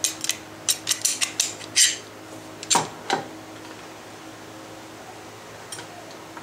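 Steel F-style bar clamp being fitted and slid into place, giving a quick run of metallic clicks and rattles in the first two seconds. A little later come two brief rubbing sounds from the camera being handled, over a faint steady hum.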